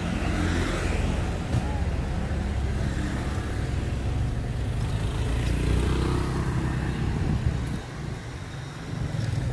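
City road traffic passing close by, a steady low engine rumble of motorbikes and cars that eases off briefly near the end.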